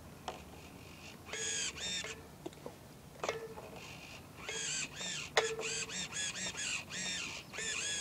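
Electric motor and propeller of a Traxxas Blast RC boat revved in short throttle blips, running dry out of the water. Each blip is a whine that rises and falls in pitch. The blips come sparsely at first, then in quick succession, several a second, over the second half, with a couple of sharp clicks among them.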